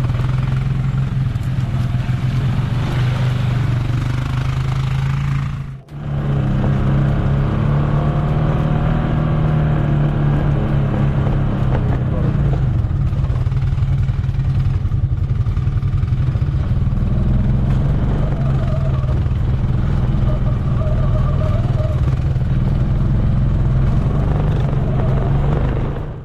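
ATV (quad bike) engine running steadily under way, with a brief drop in sound about six seconds in.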